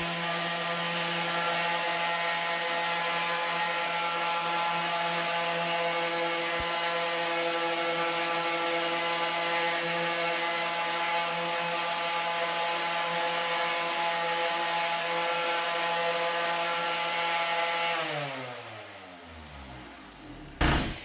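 Electric random orbital sander running steadily as it sands the old finish off a wooden tabletop. About 18 seconds in it is switched off and its pitch falls away as it winds down over about two seconds, followed by a single knock near the end.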